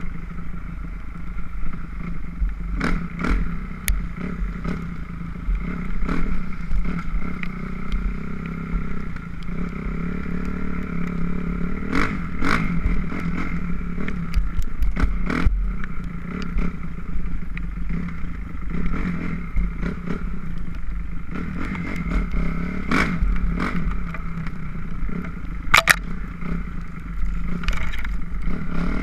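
2006 Kawasaki KX250F dirt bike's single-cylinder four-stroke engine running at fairly steady revs, with a handful of sharp knocks and clatter, the loudest near the end.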